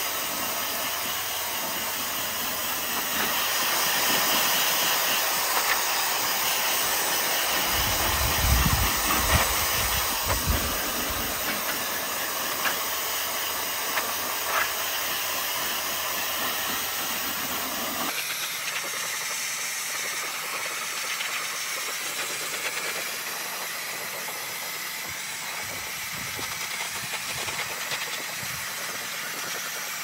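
JellyFish high-velocity pet dryer running on its first speed setting, blowing a steady loud hiss of air through a round nozzle into a dog's thick double coat. A low rumble of buffeting air comes in from about eight to eleven seconds in.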